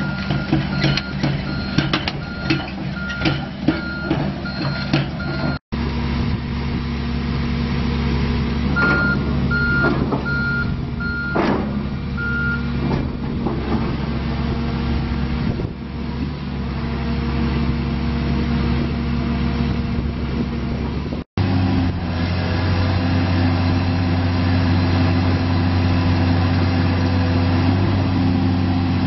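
Diesel engine of a Casagrande B105NG hydraulic piling drill rig running steadily, with a travel alarm beeping repeatedly during the first five seconds and again briefly from about nine to twelve seconds in, along with sharp metallic knocks. After about twenty-one seconds the engine runs with a deeper, stronger note.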